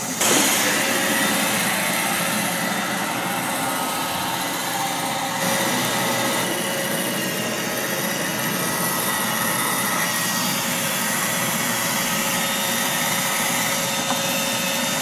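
Roomba robot vacuum running across a rug: a steady whirring motor and brush noise with a thin high whine, stepping up in loudness at the start and again about five seconds in.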